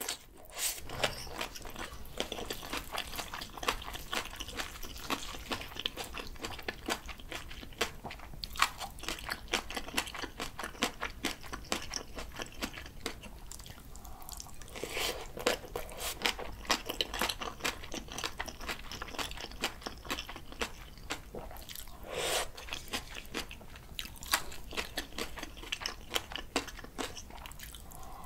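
Close-miked chewing of a mouthful of bibimbap mixed with raw julienned radish salad and spring-cabbage geotjeori: a continuous, irregular run of wet crunching and crackling mouth sounds.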